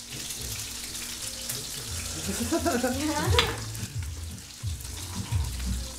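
Breaded chicken breasts sizzling steadily as they fry in oil in a pan. A short burst of a person's voice comes about halfway through.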